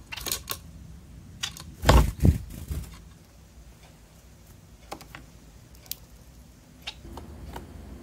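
Bengalese finches' beaks and feet tapping and clicking on hard surfaces, with a cluster of louder knocks about two seconds in, then scattered single clicks.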